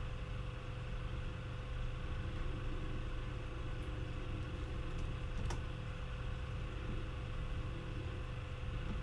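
Steady low hum of room tone, with two short clicks from the laptop about five seconds in.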